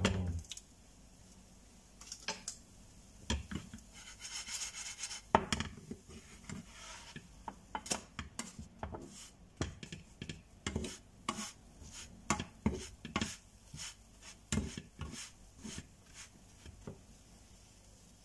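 Spatula scraping and tapping against a nonstick frying pan while a pancake is lifted and turned: a run of short, irregular scrapes and knocks, with a longer scrape about four to five seconds in.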